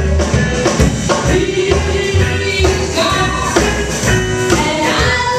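Live band music with a woman singing held notes into a microphone over a steady drum beat.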